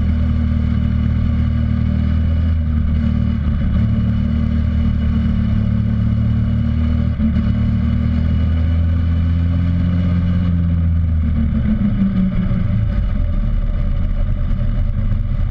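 X15 super pocket bike's small engine running steadily under way, with a shift in the engine note about eleven seconds in as the throttle eases.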